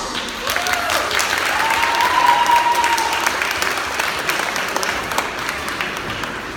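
Audience applauding, with a voice calling out in one held cheer about a second and a half in; the clapping slowly fades toward the end.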